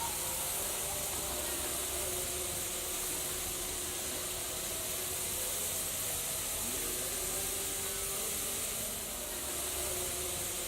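Steady hissing and sizzling of a red-hot steel ball in cough syrup.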